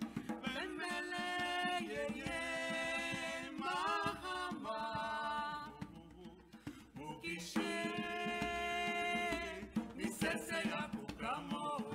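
Vocal song in Kimbundu, sung in long held notes with short gliding phrases between them, over strokes on a djembe hand drum.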